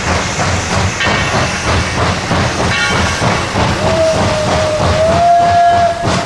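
Narrow-gauge steam locomotive working hard as it pulls away, with rapid, even exhaust chuffs. Its whistle starts about four seconds in with one long steady note that rises slightly a second later and keeps sounding.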